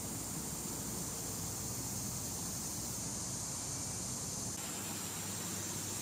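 Steady outdoor ambient hiss with a bright, even high band. The low rumble drops away about four and a half seconds in.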